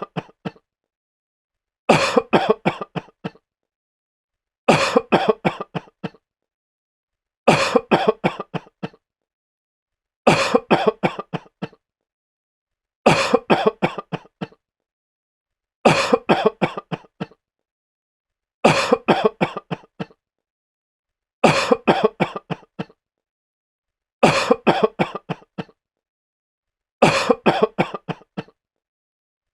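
A sick man coughing in fits of several harsh coughs, each fit fading off, separated by silence. The same fit repeats evenly, about every three seconds.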